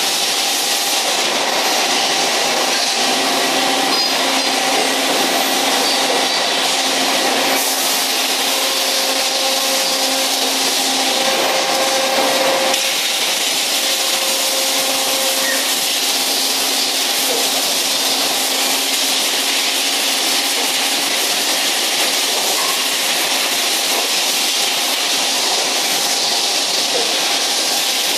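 Steady din of a row of CNC machining centers running on a shop floor: a constant hiss with low steady hums, and a mid-pitched whine that comes and goes a few times in the middle.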